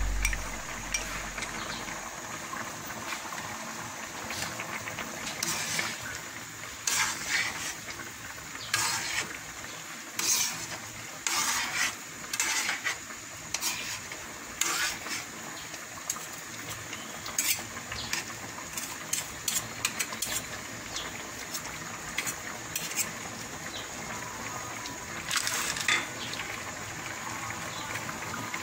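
Metal spoon scraping and clinking against a wok in short, irregular strokes as peanut butter is stirred into simmering kare-kare sauce, over a faint steady hiss.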